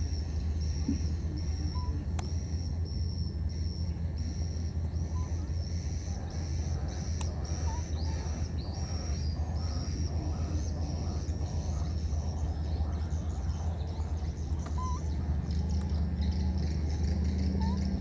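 Outdoor ambience: a high-pitched chirp repeated in a steady rhythm, about one and a half times a second, over a constant low hum, with a few faint short rising squeaks.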